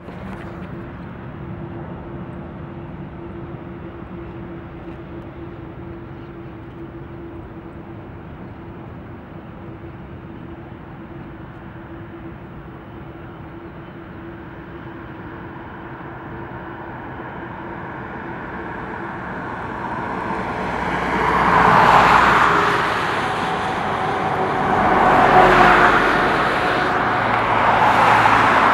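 Jet engines of a Boeing 747-8 freighter running steadily with a held whine as it taxis onto the runway. From about 18 seconds in they spool up toward takeoff thrust, rising into a loud rushing roar that swells three times.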